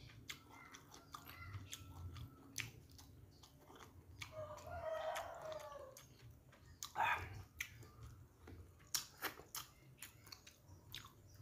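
Close-up mouth sounds of a person chewing fried fish and noodles: soft, irregular clicks and lip smacks. About four seconds in, a drawn-out call with a slightly falling pitch sounds in the background for under two seconds.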